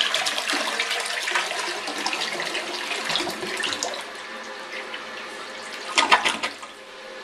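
Toilet flushing: water rushes and swirls down the bowl, loud at first and fading after about four seconds. A brief louder surge of water comes near the end, then a quieter steady hiss.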